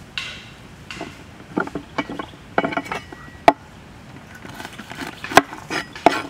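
A cleaver working garlic cloves by hand: a run of light scrapes and clicks, with two sharp knocks about three and a half and five and a half seconds in.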